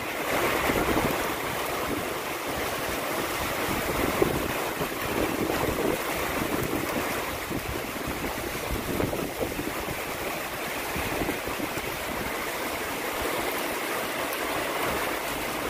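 Wind gusting over the microphone and heavy rain falling: a steady rushing noise with small swells. The wind comes from the supercell's rear-flank downdraft moving in.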